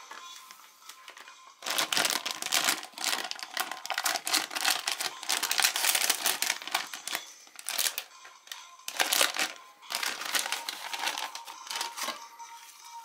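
Foil blind-bag packet crinkling loudly and being torn open by hand, in bursts of rustling that start about a second and a half in, pause briefly about seven seconds in and resume until near the end.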